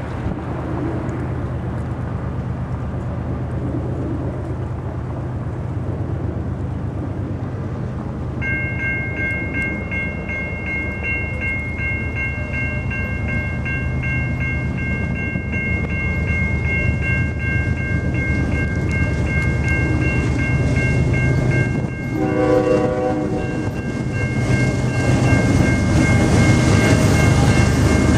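Norfolk Southern freight train's diesel locomotives rumbling steadily and growing louder as the train approaches. A bell begins ringing steadily about a third of the way in. Near three-quarters through, the locomotive's multi-note air horn gives a short blast of about a second and a half.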